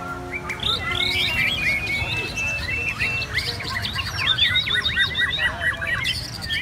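Caged white-rumped shamas singing at once: overlapping, varied whistled phrases and fast runs of repeated notes, busiest about four seconds in, over a steady low rumble.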